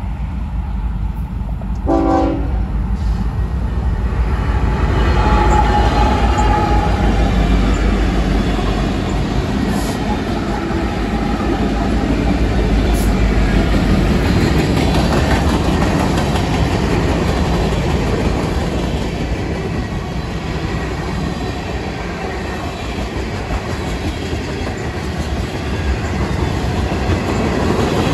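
Freight train led by several Union Pacific diesel locomotives passing close by: a short horn blast about two seconds in, then the locomotives' engines rumble past, followed by the rolling clatter of wheels over the rail joints as covered hoppers and tank cars go by.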